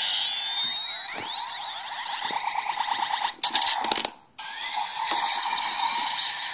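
Kamen Rider Double toy transformation belt playing its Maximum Drive finishing-attack sound effect through its small speaker. First come electronic sweeps gliding up and down, then a rapid buzzing pulse. The sound breaks off briefly a little past four seconds, between a couple of clicks, and a steady electronic whoosh follows.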